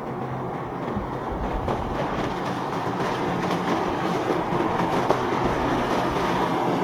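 Boat engines running with rushing water and wind noise: a steady low engine drone under a broad roar.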